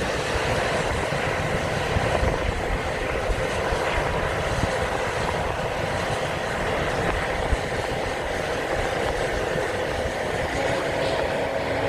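John Deere combine harvesters running steadily, a continuous machine drone with a few faint steady tones, over an irregular low rumble.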